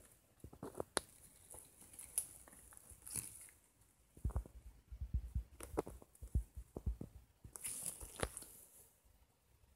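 Irregular handling noises: scattered clicks and taps with some rustling, and a run of heavier low knocks in the middle, as parts or packaging are handled.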